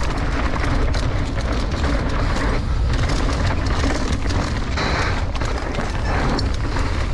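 Mountain bike descending a dirt singletrack at speed: heavy wind buffeting on the camera microphone over the rumble of the tyres on dirt. Frequent clicks and knocks come from the bike rattling over the rough trail.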